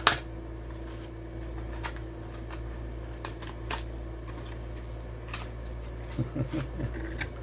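Hot Wheels blister packaging being worked open by hand: scattered sharp clicks and crackles of plastic and cardboard, with a loud click at the start, over a steady low hum.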